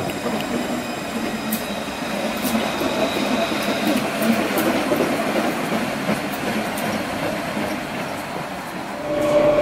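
A Luas light-rail tram (Alstom Citadis) running past close by, its steel wheels rumbling on the rails with a faint high squeal. Near the end the sound changes to a louder steady hum with a clear pitch.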